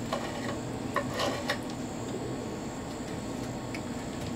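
Knife and fork cutting into a cooked chuck steak, with a few light clicks of the cutlery against the board and plate over a steady background hum.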